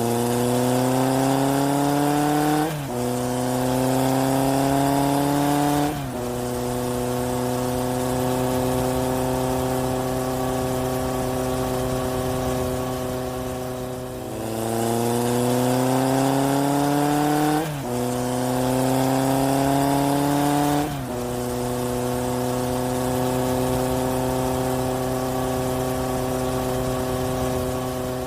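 Sound effect of a car engine accelerating through the gears: the pitch climbs, drops sharply at two gear changes, then holds steady at a cruise. The same sequence plays again about halfway through, a looped effect standing in for music.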